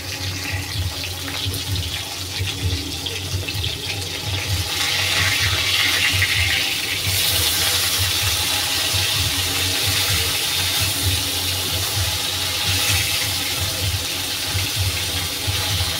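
Fish pieces sizzling as they fry in hot oil in a kadai, the sizzle growing stronger about five seconds in, over a low, uneven rumble.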